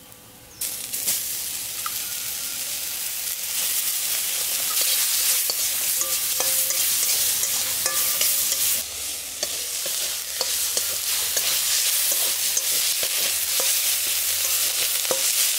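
Ginger-garlic paste sizzling in hot oil with browned onions in a steel kadai, starting suddenly about half a second in. A metal spatula scrapes and clicks against the pan as the mixture is stirred.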